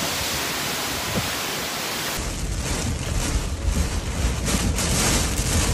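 Storm noise: a steady rush of heavy rain and wind. About two seconds in it cuts to gustier wind buffeting the microphone, with a deep rumble under the hiss.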